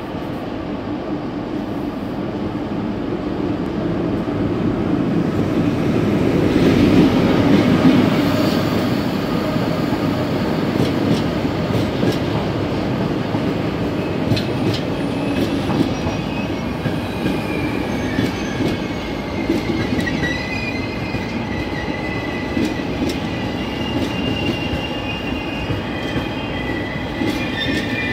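HŽ class 1142 thyristor electric locomotive running past, followed by a car-carrier wagon and passenger coaches rolling by, with wheel clicks over rail joints; loudest as the locomotive passes. In the second half, high-pitched wheel squeal builds as the train slows for its stop at the platform.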